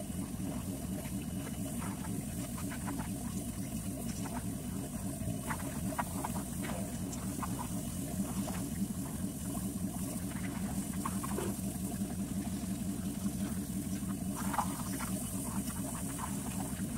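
Pressure washer running steadily with a low, rapidly pulsing rumble, its spray hissing and spattering off a truck's steel frame in short sharp bursts, most strongly near the end.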